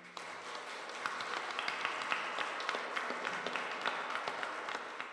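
Audience applauding: many hands clapping together, dying away at the end.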